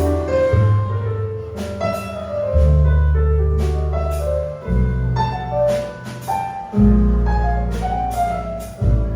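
Small jazz combo playing a ballad, with piano prominent over bass notes that change about every two seconds and light cymbal strokes from the drums.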